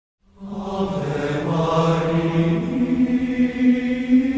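Opening music of long, held chant-like notes, starting a moment in; the low note moves up about two and a half seconds in.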